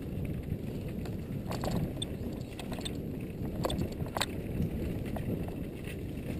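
Mountain bike descending a dirt singletrack at speed: a steady rumble of wind on the camera microphone and tyres rolling over dirt, with several sharp clacks and rattles of the bike hitting bumps.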